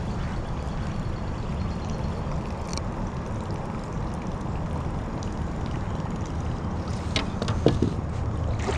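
Steady low wind rumble on the microphone while out on a kayak, with faint water noise and a few small knocks near the end.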